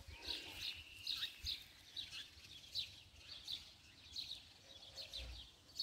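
Small birds chirping faintly in short, high chirps, one or two a second; a thin whistled note is held for about a second near the start.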